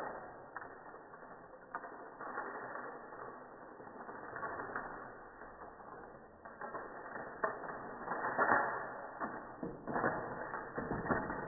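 Wooden popsicle sticks creaking and clicking against each other, an uneven rustle with scattered sharp clicks that grows busier near the end.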